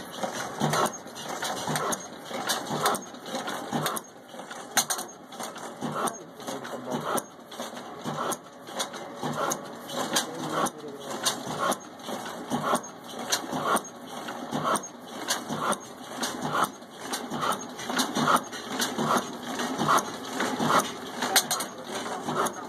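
Old black Ruston-type desi diesel engine running at slow speed, its steady beat of just under two knocks a second carried over a busy mechanical clatter of valve gear and linkage.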